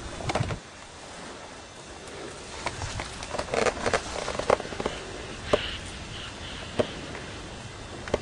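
Dry reeds and twigs rustling and crackling, with a few sharp snaps spread through the middle and end.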